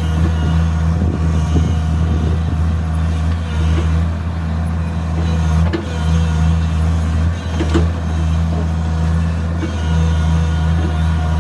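Tata Hitachi EX130 excavator's diesel engine running at a steady hum, with two short knocks a little past halfway.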